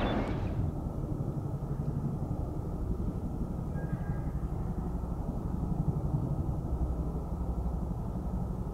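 A steady low rumble. A louder rushing noise fades away in the first half second.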